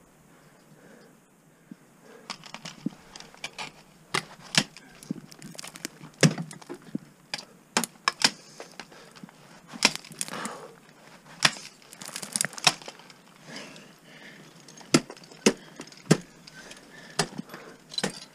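Ice axe picks and crampon points striking hard water ice during a steep lead climb: a long, irregular run of sharp impacts that starts about two seconds in.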